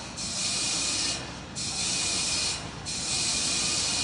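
Pad audio of the Terran 1 rocket venting propellant vapour: a hiss that comes in three bursts of a little over a second each, with short breaks between.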